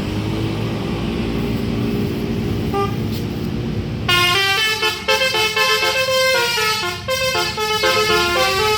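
A bus engine running low as the bus approaches, then about four seconds in a Basuri telolet horn starts playing a quick, stepping multi-note melody.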